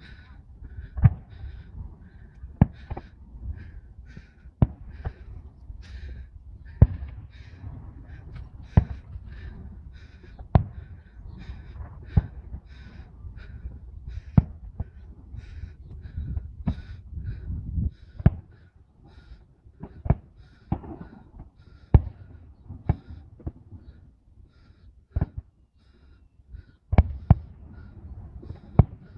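Distant fireworks going off: sharp, irregular bangs every second or two over a low rumble, with a faint regular chirping throughout.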